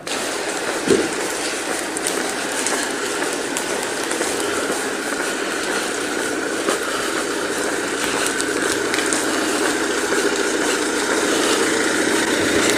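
Steady rushing noise of wind and rain in a storm, with one short knock about a second in.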